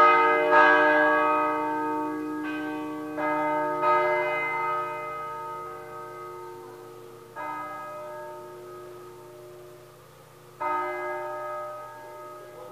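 Church bells swinging in their tower and striking about seven times, the strokes coming further apart as the ringing winds down, each stroke left to ring and fade.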